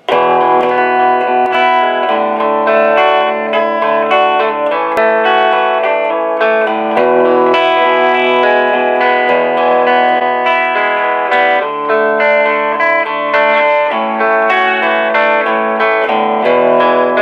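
1960 Silvertone 1423 Jupiter electric guitar with its DeArmond pickup, played through an Orange amp on a clean tone: picked chords and single notes in a steady rhythm, the chords changing about every half second.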